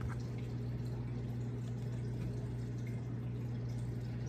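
Lard scraped out of a plastic measuring cup into a plastic mixing bowl with a wooden spatula, faint, over a steady low hum.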